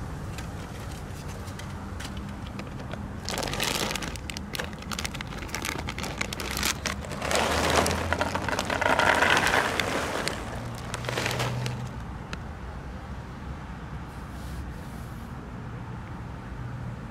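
A plastic bag of dry cat food crinkling as kibble is poured out onto a foam tray, a run of crackling rattles that starts a few seconds in, is loudest around the middle and stops a few seconds before the end.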